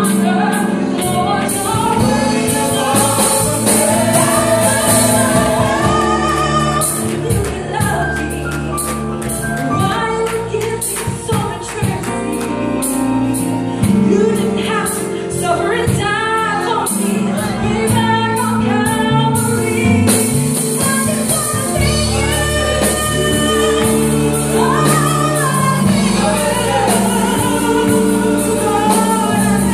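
Live gospel praise singing: a woman leads on microphone with men singing backing harmonies, over full instrumental accompaniment with a steady beat.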